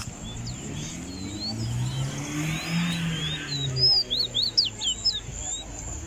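Caged songbird calling a series of short, sweeping chirps, coming quicker and louder about four seconds in. Under the first part, a vehicle's engine hums past, its pitch rising then falling.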